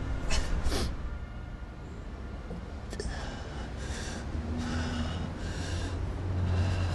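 A man breathing hard: two quick, sharp breaths at the start, then a run of heavy breaths about one a second.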